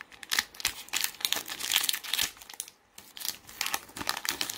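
Pokémon trading-card booster pack's foil wrapper crinkling and tearing as it is pulled open by hand, a dense irregular crackle that stops briefly a little before the end.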